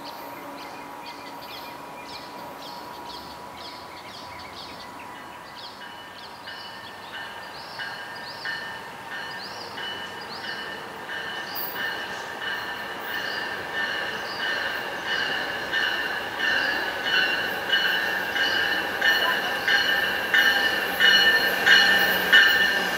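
Metrolink commuter train, cab car leading, approaching the station and growing steadily louder, with a bell ringing about twice a second over the rising rumble.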